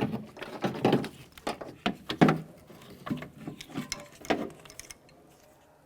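Car door glass track being pulled out of the metal door shell: a run of irregular clicks, knocks and scrapes that stops about four and a half seconds in.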